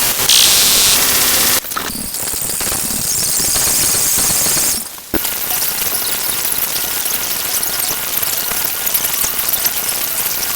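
A string of harsh, noisy, distorted sound effects that switch abruptly about a second and a half in and again about five seconds in, with a brief drop just before the second switch.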